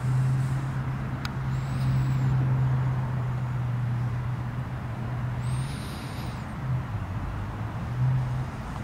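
Steady low hum of an idling vehicle engine, easing off a little more than halfway through. High warbling chirps come twice and a single click sounds early on.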